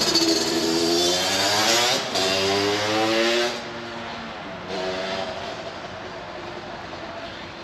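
A vehicle engine accelerating, its note rising for about three and a half seconds before it cuts off sharply. A shorter burst of engine sound follows about five seconds in.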